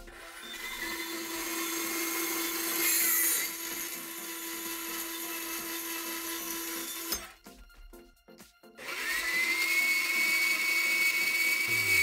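Horizontal metal-cutting band saw running and cutting through steel square tube. About seven seconds in the sound drops away for a second and a half, then comes back with a rising whine that settles into a steady high tone.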